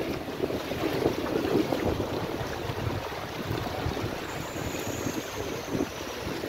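Floodwater sloshing and splashing unevenly as someone wades through it, with some wind noise on the microphone.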